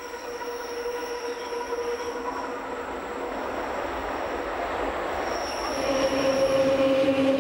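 Rhaetian Railway Bernina line train running through tight curves, its wheels squealing in several steady high tones over the rolling noise of the cars. It gets louder about six seconds in.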